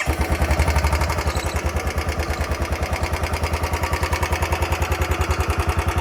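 Royal Enfield Bullet 350 BS6 single-cylinder engine idling with a fast, even tik-tik ticking. The owner calls the noise new and annoying, like a generator or tractor running, and takes it for an engine problem.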